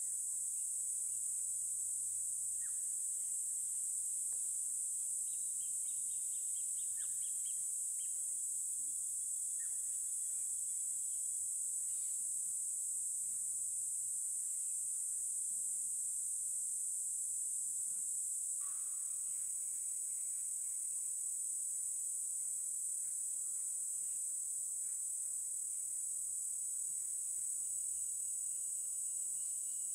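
Steady high-pitched drone of an insect chorus, with scattered short bird calls over it, one louder call a little past halfway.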